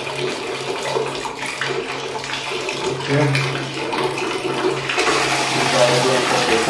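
Water pouring from the spout of a Jaquar wall mixer into a plastic bucket, the flow growing much stronger and louder about five seconds in as the freshly refitted diverter cartridge is turned open.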